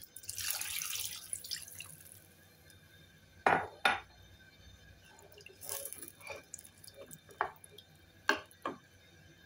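Water poured from a glass measuring jug into a nonstick pan of chopped vegetables, splashing for about two seconds. Then come two sharp knocks, followed by lighter knocks and a short splash as a wooden spoon stirs the pieces in the water.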